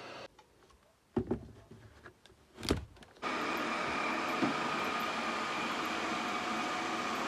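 Robot vacuum cleaner being switched on: a couple of knocks or clicks, then about three seconds in its motors start and run with a steady whine. This is the sign that it now powers on after its 18650 battery pack was replaced.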